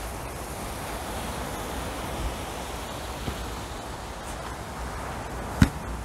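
Steady outdoor rushing ambience with a few faint ticks, and one sharp knock about five and a half seconds in.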